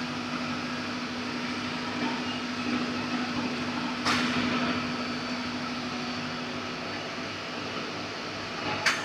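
Steady hum of CNC milling machinery, with a low steady tone that drops away about seven seconds in. Two short sharp hissing noises cut through it, one about four seconds in and one just before the end.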